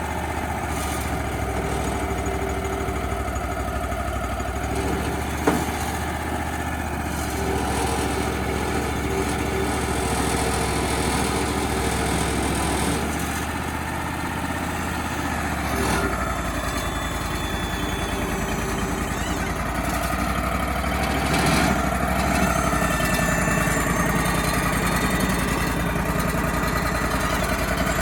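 Engine of a Wood-Mizer LT35HD portable bandsaw mill running steadily, its sound deepening about two thirds of the way through. A single sharp knock about five seconds in.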